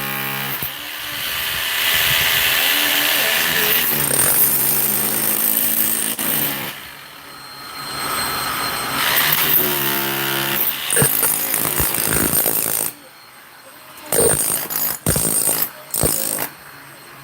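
Power tool running in several long bursts, with short pauses between and a few sharp knocks near the end.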